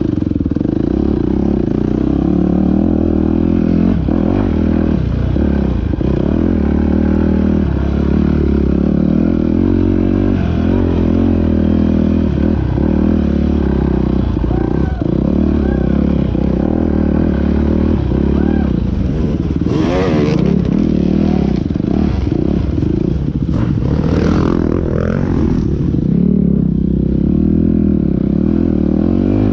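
Off-road dirt bike engine running hard on a hare scrambles course, revs rising and falling with the throttle, along with the bike's rattle. Two short, louder rough bursts of noise break in about two-thirds of the way through.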